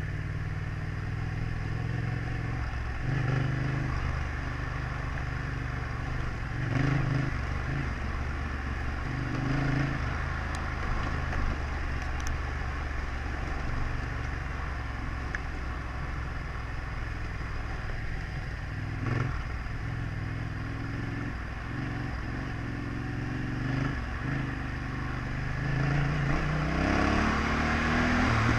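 Yamaha Ténéré 700's parallel-twin engine running at low revs on a rough grass track, the throttle opened and closed, with a few knocks from the bumps. The revs climb near the end.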